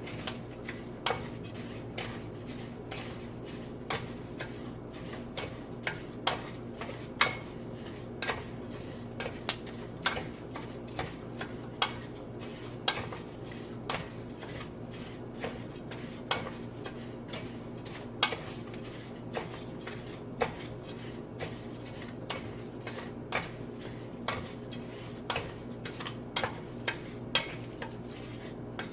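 A spoon stirring rice in a cooking pot, knocking and scraping against the pot about twice a second, over a steady low hum.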